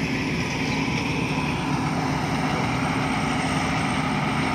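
Rice combine harvester's engine running steadily, a constant low hum with even machinery noise that does not change in pitch.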